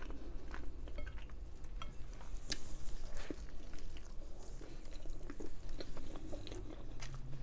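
A person biting into garlic naan topped with paneer tikka masala and chewing it, heard as a scatter of soft, short mouth clicks.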